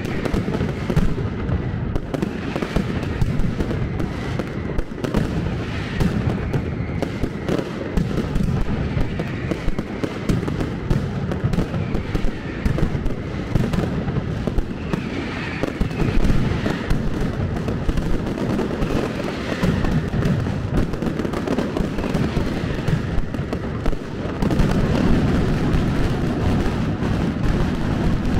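Firecrackers going off in a dense, unbroken barrage of bangs and crackles, growing a little louder near the end.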